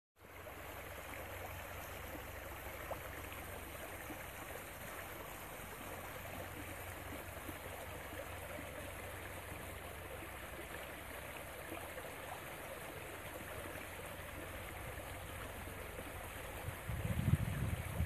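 Small stream running over stones and fallen branches in a shallow riffle: a steady, even rush of water. About a second before the end, a louder low rumble comes in.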